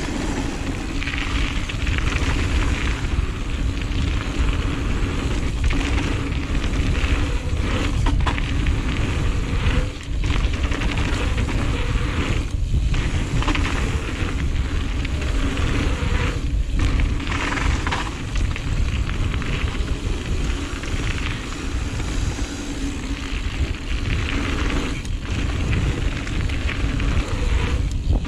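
Giant Reign full-suspension mountain bike riding fast down a dirt flow trail, heard through a GoPro's microphone: a steady low wind rumble on the mic, with crackly tyre-on-dirt noise and the rattle of the bike, and a few brief dips along the way.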